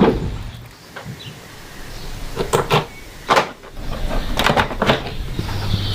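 A few sharp knocks and clanks, then a steady low hum that sets in about five and a half seconds in.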